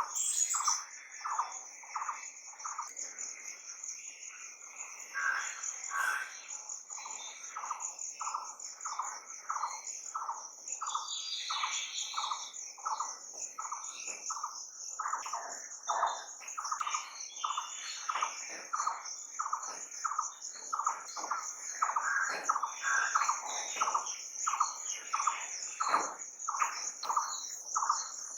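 Nature ambience: a steady high insect trill, with a rhythmic run of short chirps at about three a second and other bird calls over it.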